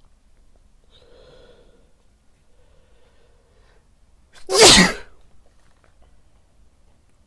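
A man sneezes once, loudly, about four and a half seconds in; a short explosive sneeze after a few faint breaths.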